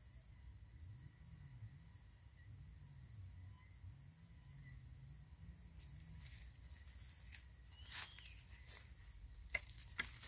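An insect's steady, high-pitched trill. From about six seconds in, dry leaves and twigs rustle and crackle as someone moves through the undergrowth, with a few sharp snaps near the end.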